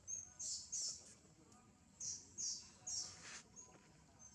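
A bird calling: short, high, hissy chirps in twos and threes, about two a second, over faint background.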